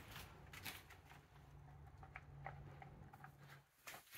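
Near silence, with a few faint light clicks from small parts being handled.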